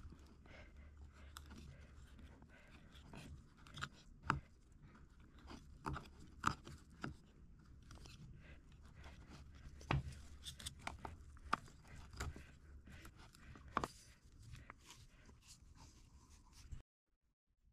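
Scattered small taps, clicks and light scraping over a steady low hum, cutting off abruptly near the end.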